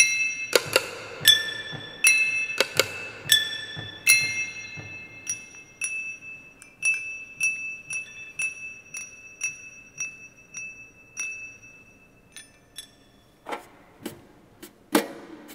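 Small glass bowls and dishes struck with a thin stick, each tap ringing out in clear high tones, about three strikes every two seconds and growing softer as it goes on. Near the end come two short scrapes on a small wooden box.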